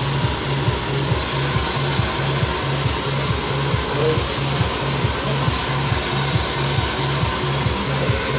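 Handheld hair dryer blowing steadily on a woman's hair, over background music with a steady bass beat of about two and a half beats a second.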